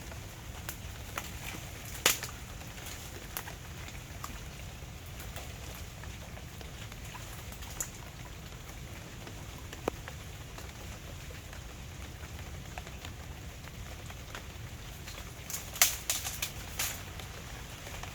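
Light rain patter with scattered drops and small ticks over a steady low rumble of wind on the microphone, with a quick cluster of sharper clicks near the end.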